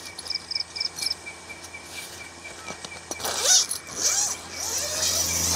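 Zipper of a hammock's mosquito net pulled in a few quick strokes about three seconds in, over crickets chirping in short regular pulses. Near the end an electric fan starts up and runs with a steady hum and whoosh.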